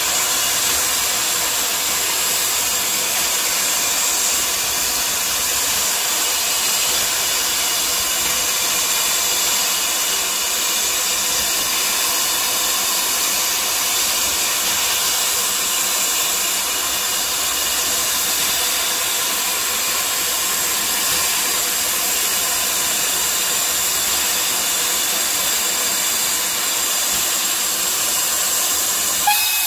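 Steam locomotive blowing off steam in a loud, steady hiss. Near the very end its steam whistle starts to sound.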